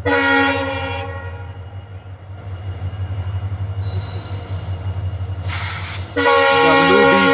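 WDP4D diesel locomotive's horn sounding twice, a short blast at the start and a longer one about six seconds in. Under both blasts is the steady running of its EMD two-stroke diesel engine.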